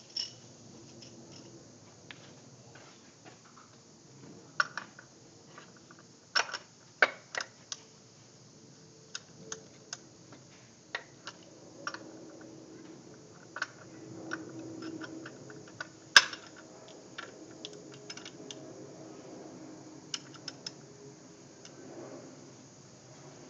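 Irregular metallic clicks and knocks from a half-inch ratchet and hands working the automatic serpentine-belt tensioner under the hood, as the belt is slackened and lifted off a pulley. The loudest knock comes about two-thirds of the way in.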